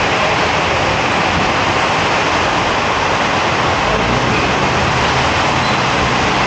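A steady, loud hiss of noise with no distinct events in it.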